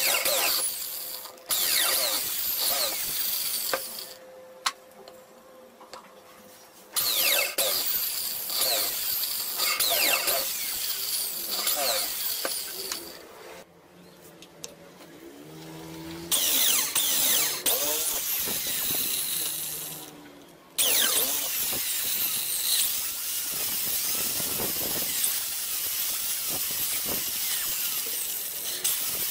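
Handheld power drill boring holes through plywood in about five runs of a few seconds each, with short pauses between, the motor's pitch rising and falling as the bit cuts.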